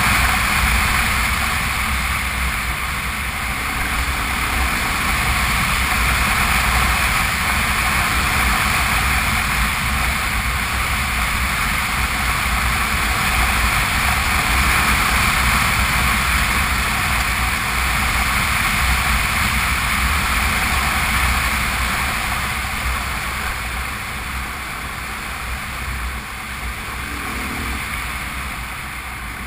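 Honda Transalp V-twin motorcycle riding at speed on a gravel track: a steady rush of wind and tyre noise over the engine. It eases a little near the end.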